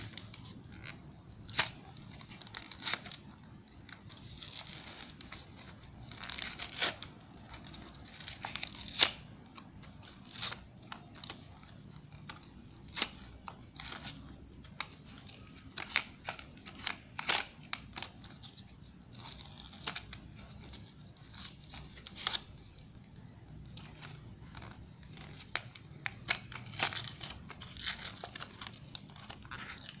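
Cardboard backing of a pencil blister pack being torn open by hand: a long run of short rips, scratches and sharp clicks with crinkling in between.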